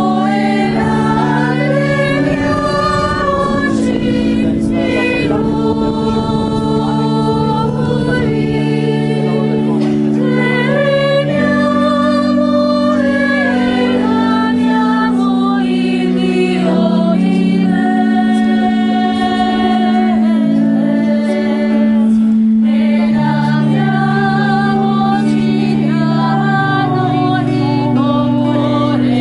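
Choir singing an offertory hymn over sustained low accompaniment chords that change every few seconds.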